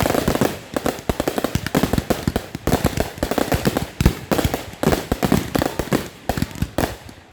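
Fireworks finale: a dense barrage of bangs from many shells going off in quick succession, easing off near the end.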